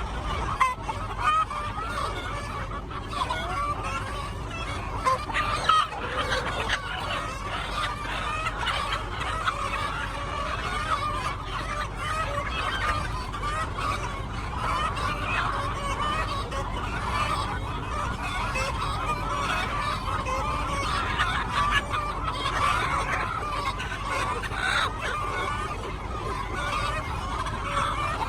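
A flock of chickens clucking and calling over one another in a steady, continuous chatter, with a few sharp knocks in the first few seconds.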